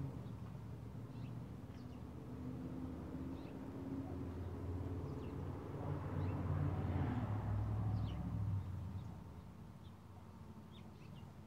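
A low engine hum, like a vehicle close by, builds to its loudest near the end and then fades away, with faint short bird chirps scattered over it.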